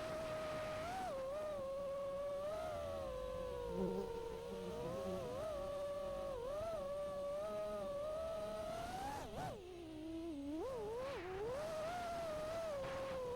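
5-inch FPV quadcopter's brushless motors and props whining, the pitch wavering with each throttle change. About nine seconds in, the throttle is chopped and the pitch drops sharply, then it wobbles and climbs back up.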